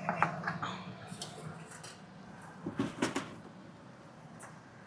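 A few scattered knocks and clinks of kitchen things being handled, the loudest pair about three seconds in, over a low steady hum.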